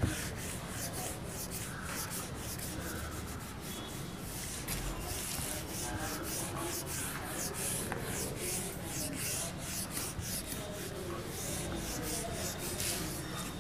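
Handheld whiteboard eraser rubbing across a whiteboard in quick, repeated back-and-forth strokes, wiping off marker writing.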